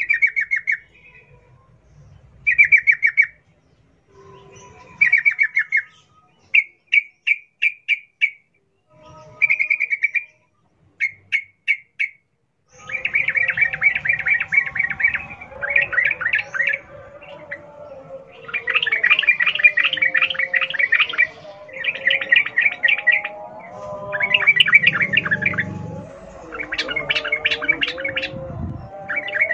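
Yellow-vented bulbul (trucukan) giving its fast 'ropel' chatter: rapid rattling bursts of quick repeated notes. For about the first twelve seconds the bursts are short and separate. After that they come longer and closer together over a background of lower, wavering birdsong.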